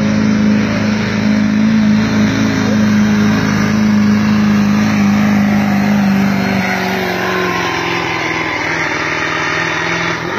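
Truck engine held at high revs through its aftermarket exhaust, a loud steady drone, then the revs fall away over the last few seconds.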